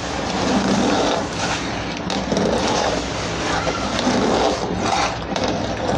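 A spoon stirring a pot of thick, bubbling milk kheer and scraping along the bottom of the pot, in strokes about once a second, to keep it from catching.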